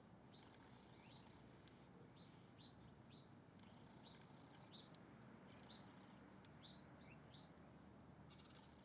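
Faint small bird chirping: short, high chirps repeated about twice a second, some sliding down in pitch.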